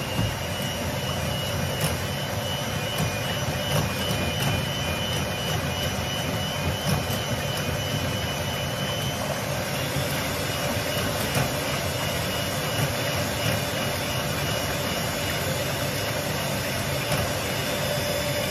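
Electric hand mixer starting up and running steadily, its beaters whisking a thin batter in a glass bowl. The motor gives a steady whine whose pitch shifts slightly about halfway through.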